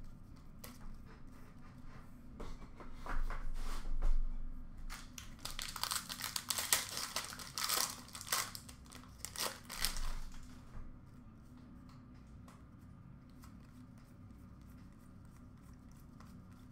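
Upper Deck hockey card pack wrapper being torn open and crinkled: a run of irregular rustling and tearing that starts a few seconds in and stops after about ten seconds.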